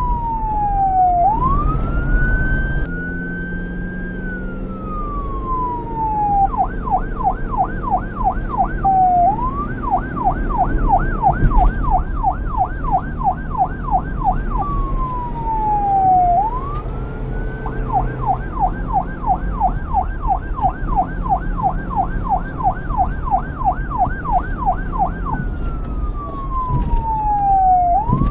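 Police car siren alternating a slow wail, falling and rising in pitch over a couple of seconds, with long runs of fast yelp, about four sweeps a second, over a low rumble underneath.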